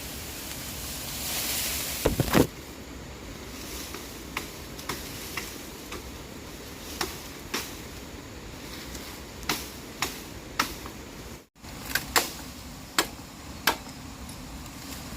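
A series of irregular sharp knocks and taps over a steady hiss, with a louder rushing noise and a cluster of heavier knocks about two seconds in.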